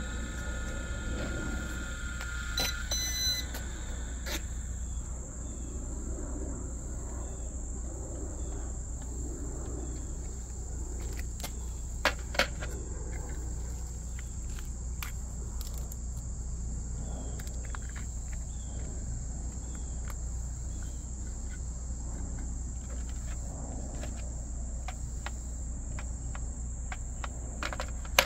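Outdoor insects, crickets, trilling steadily and high, over a low steady background hum. A steady tone stops about two and a half seconds in, and two sharp clicks stand out about twelve seconds in, with a few quieter clicks from handling.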